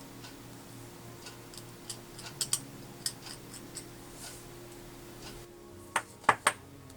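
Small plastic kit parts and hand tools clicking and tapping as the parts are cleaned up, with three sharp clicks in quick succession near the end, over a low steady hum.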